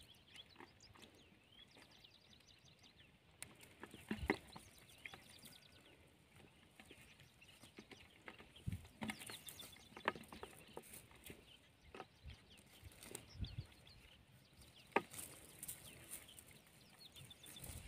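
Quiet handling sounds of a cast net: scattered clicks and rustles from its chain weights and mesh as small fish are picked out of it. Birds call in the background.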